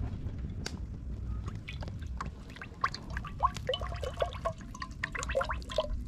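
Cooking oil pouring from a plastic jug into a metal pot, with a run of gurgling glugs from about halfway as the jug lets air in.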